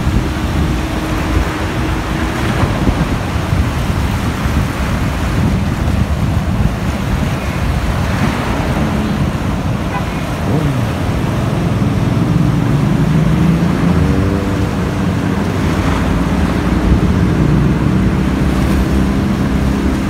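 Wind buffeting the microphone over the steady wash of sea waves against the rocks. From about twelve seconds in, an engine hum rises and falls underneath.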